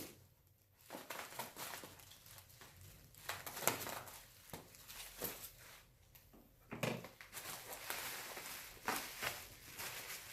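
Packaging being unwrapped by hand: irregular rustling and crinkling with a few sharp clicks and scrapes.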